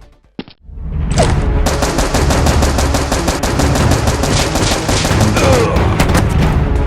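Rapid automatic gunfire sound effects: a brief hush with a single click, then about a second in a long, fast, continuous burst of shots, with music underneath.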